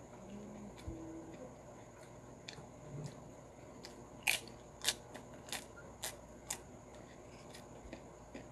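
Chewing a crunchy puffed prawn cracker (keropok), with a run of about six sharp crunches between four and six and a half seconds in and fainter ticks of chewing around them.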